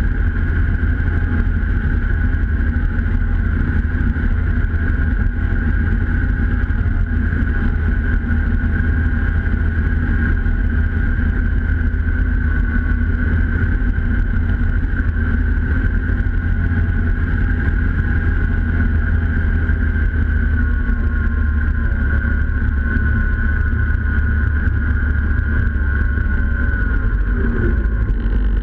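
Snowmobile engine and track running steadily at cruising speed, heard close up from a camera mounted on the sled's hood: a continuous low rumble with a steady high whine over it.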